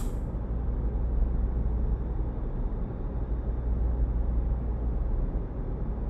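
Steady low hum and rumble of a background ambience bed, a laboratory machinery drone, with no distinct events.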